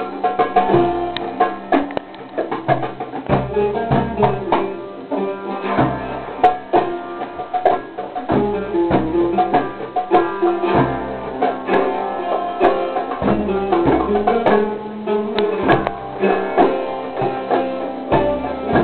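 Live belly-dance music: a plucked string instrument plays a melody over a steady rhythm of doumbek hand-drum strokes.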